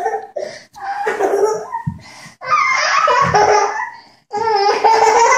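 High-pitched laughter in several loud bursts with short breaks between them, typical of a small child laughing hard.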